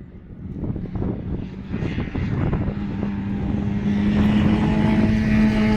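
A racing car's engine approaching through the trees, growing steadily louder while holding a steady note.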